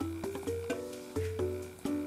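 Background music: a light melody of notes that start sharply and fade, about two a second.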